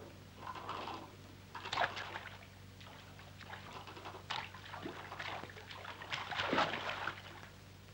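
Water splashing in a shallow river as a person wades in: a handful of separate, irregular splashes.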